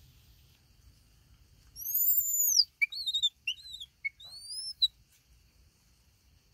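A baby macaque's high, whistle-like calls: one long arching note, then several short squeaks gliding up and down, and a final rising note, all within about three seconds.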